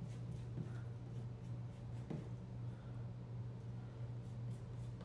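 A painting spatula scraping and spreading acrylic paint in light strokes, a run of them near the start and again near the end, over a steady low hum.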